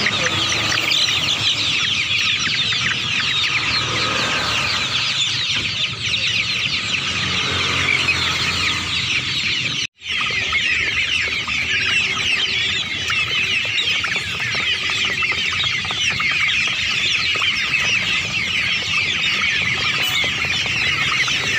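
A crowded pen of young poultry, chicks and then guinea fowl keets, peeping and cheeping constantly, many high calls overlapping. The sound cuts out for an instant about ten seconds in.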